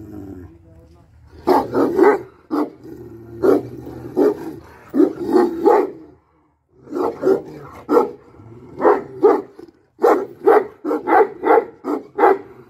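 Pakistani bully dog barking in volleys of deep barks, several in quick succession, with short pauses and a low growl between the volleys.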